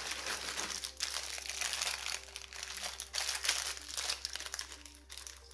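Packaging crinkling as it is handled: an irregular, dense crackle that is loudest around the middle.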